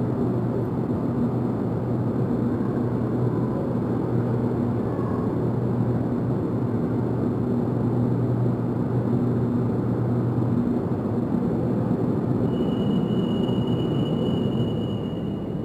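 Santiago Metro Line 6 trains standing at a station, with a steady rumbling hum of the train equipment. The low part of the hum drops away about two-thirds of the way through, and near the end a steady high beep sounds for about three seconds.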